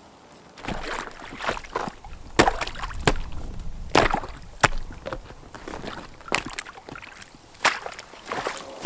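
Rubber boots stepping onto thin, snow-covered shoreline ice, with several sharp cracks and crunches as the ice gives underfoot, over a rough scraping rumble of a plastic canoe hull sliding across the ice and snow.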